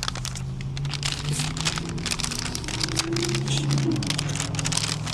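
Paper takeout bag rustling and crinkling as food is dug out of it, in a run of dense irregular crackles, with a low steady hum underneath.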